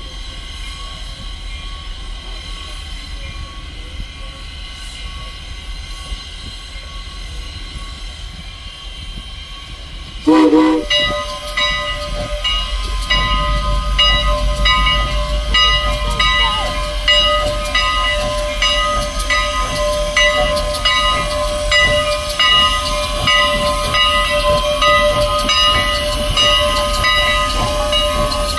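A steam locomotive's whistle sounds briefly about a third of the way in. The train then starts rolling past, with a steady high-pitched squeal, a regular clicking of wheels over rail joints and a low rumble.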